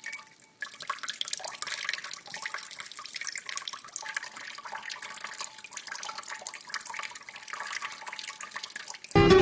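Water running and splashing in many small irregular drips and splashes.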